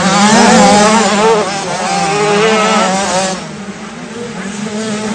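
Two 65cc two-stroke motocross bikes revving hard, their engine pitch rising and falling quickly with the throttle. The sound drops away about three and a half seconds in as they pass.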